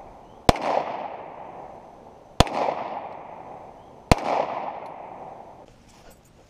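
Three gunshots from a .38 revolver, spaced about two seconds apart, each followed by a long echo that dies away; the last shot empties the revolver.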